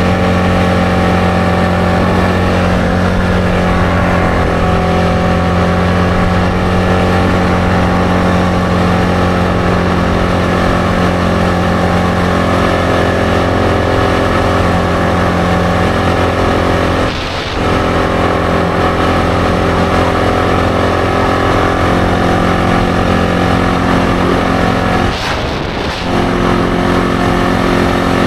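ATV engine running steadily while the quad is ridden along, its note dropping briefly twice, once about halfway through and once near the end.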